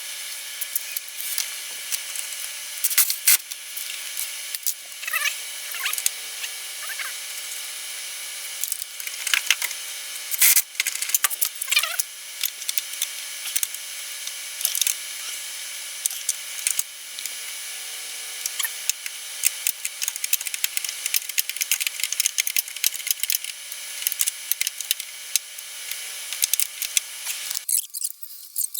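Workshop tool noise: hand tools knocking, clicking and scraping on metal parts over a steady hiss. It cuts off abruptly near the end.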